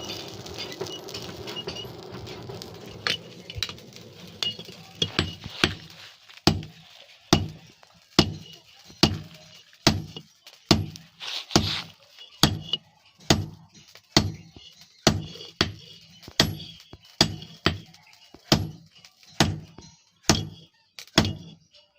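Hammer blows on an iron strip against an anvil, forging a billhook blade: sharp ringing metal strikes at a steady pace of a little over one a second. They begin after a few seconds of steady rushing noise and go on to the end.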